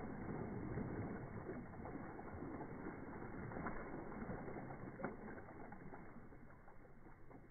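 Water splashing and sloshing in a shallow inflatable paddling pool as a Newfoundland dog paws and stomps in it and shakes water from its coat, the splashing growing quieter near the end.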